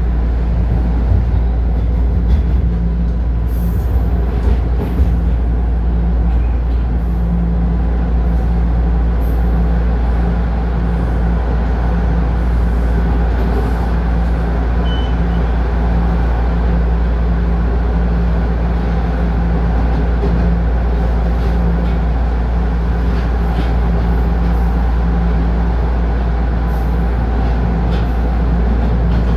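Inside a TTC Toronto Rocket subway car running on the line: a loud, steady rumble of wheels and traction motors, with a low hum that comes and goes and a few faint clicks.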